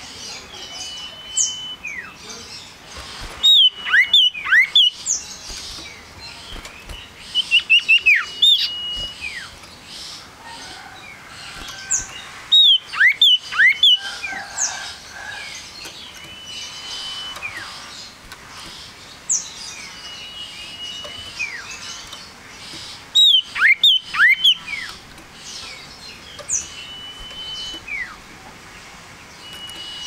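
Male common iora singing: short held whistles and falling notes, broken four times by louder bursts of rapid sweeping notes, each lasting about a second and a half.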